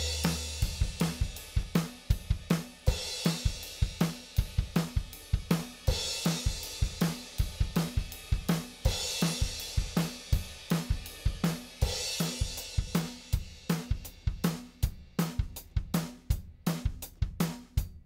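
Recorded acoustic drum kit playing a steady groove of kick, snare and hi-hat, with a cymbal crash about every three seconds. A low bass note dies away just after the start.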